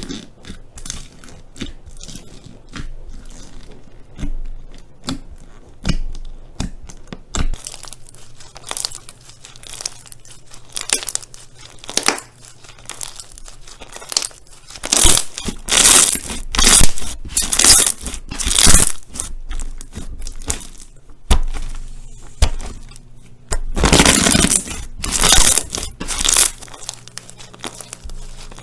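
Slime being squeezed and pressed by hand, giving irregular crackling bursts that come thickest and loudest in two clusters in the second half.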